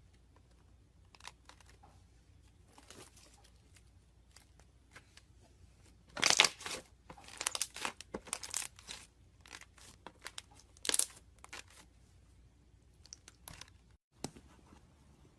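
Slime being squished and pulled apart by hand, giving a run of irregular sticky crackling and tearing noises, loudest about six seconds in.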